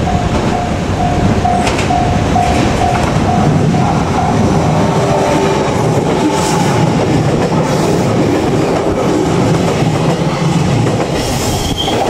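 JR Kyushu electric train running over the rails with clickety-clack and rumble, a little wheel squeal. A level-crossing warning bell rings about twice a second in the first four seconds or so, then fades under the train noise.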